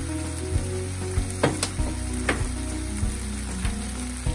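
Squid and vegetables in red chili sauce sizzling in a nonstick frying pan while being stirred with a silicone spatula, with several sharp knocks of the spatula against the pan.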